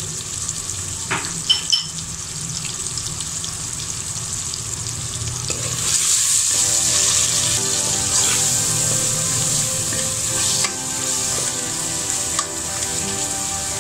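Tomato-onion masala with freshly added spice powders sizzling in hot oil in an aluminium pot, with a steel spoon clinking and scraping against the pot as it is stirred. The sizzle grows louder about six seconds in, as the stirring mixes the spices into the oil.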